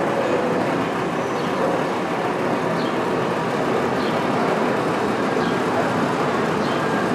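Steady rumble of an R160 subway train running on the elevated track through the station, with faint high clicks about once a second.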